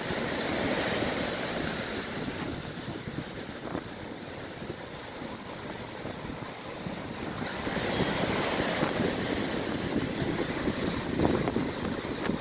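Small surf waves breaking and washing up on a sandy beach, a steady hiss that swells louder as waves break at the start and again past the middle. Wind buffets the microphone with a low rumble underneath.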